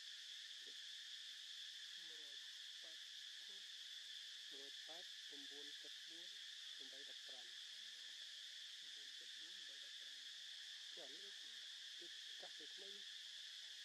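Faint, steady insect chorus, a high continuous chirring, with faint broken low sounds underneath at times.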